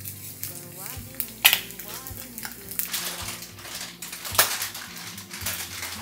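Egg sizzling in a nonstick frying pan, with kitchen clatter: two sharp knocks stand out, about a second and a half in and again past four seconds.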